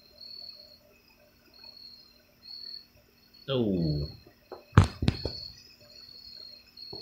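Insects chirping in a steady, evenly pulsed rhythm, with two sharp clicks in quick succession about five seconds in.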